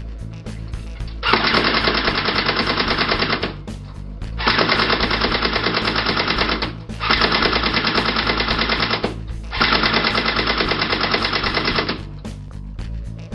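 C-TAC CT74N electric airsoft rifle firing on full auto with its blowback action: four long bursts of rapid clicking shots, each lasting about two seconds, with short pauses between them.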